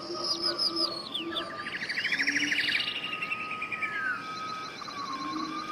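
Birds singing: quick sweeping chirps and a rapid trill, the busiest stretch about two seconds in, over a long steady whistled note.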